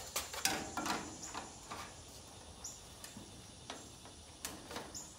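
Aluminium gutter end cap being fitted onto and handled against the end of an aluminium gutter: light metal clicks, taps and scrapes, several in quick succession in the first second, then a few sparser ones, with one brief high squeak.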